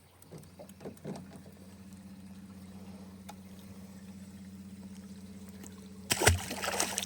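A steady low hum of a small motor, starting about a second in. About six seconds in, a short, louder burst of water noise, like a splash or slosh.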